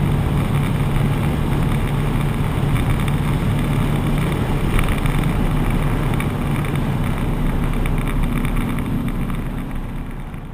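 Seat Toledo's tuned 1.9 TDI four-cylinder turbodiesel, fitted with an upgraded turbo and injector nozzles, running flat out near top speed in a steady drone at about 4,300 rpm, with wind noise inside the cabin. The sound fades out near the end.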